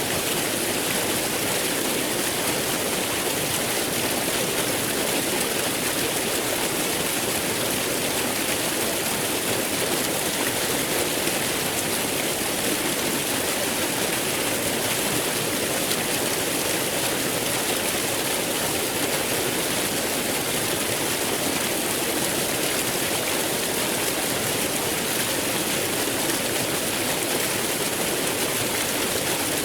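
Waterfall: falling water rushing steadily and evenly, a continuous hiss with no breaks.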